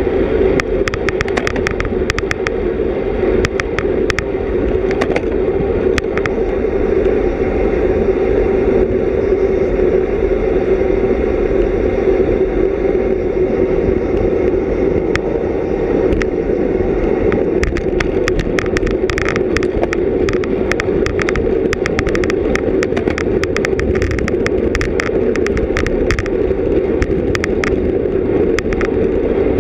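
Wind and road noise of a bicycle moving at race speed, picked up by a GoPro Hero 3+: a loud, steady rushing with scattered sharp clicks, in a cluster over the first few seconds and again through the last ten seconds or so.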